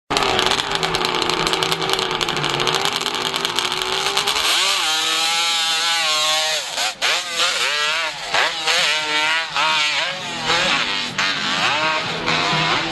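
500cc motocross bike engine running hard at high revs up a steep dirt slope. It holds a steady high note for the first few seconds, then from about four seconds in the revs rise and fall over and over, about once a second.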